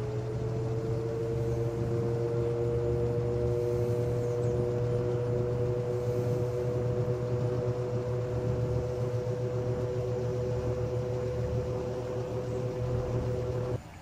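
Vintage wide-blade Lasko-built box fan (Western Auto Citation, circa 1978) running on low speed: a steady motor hum with blade whir, its pitch rising slightly in the first second as it finishes coming up to speed, then holding steady. The sound cuts off suddenly just before the end.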